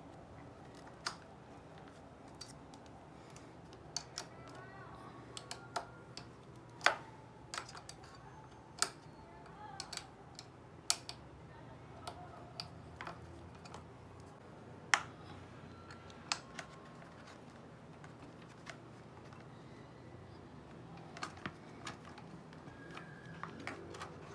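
Irregular sharp metallic clicks and taps of an Allen wrench working screws loose and small metal parts being handled while a scooter mudguard bracket is unbolted, with a few louder knocks.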